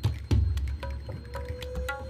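Intro music with a beat of sharp percussion hits over deep bass notes, and one note held through the second half.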